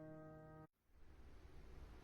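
A held piano chord dying away, cut off abruptly less than a second in, followed by faint hiss.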